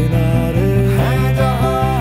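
Background music from a Hindi song, a melodic passage over a steady beat.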